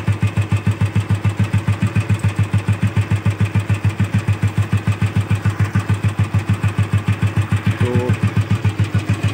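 Royal Enfield Bullet 350's single-cylinder engine idling with a slow, even thump of about six beats a second.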